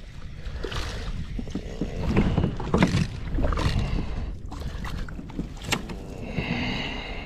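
Water splashing and sloshing around a plastic kayak as a small hooked trout thrashes at the surface beside the hull and is scooped up in a landing net.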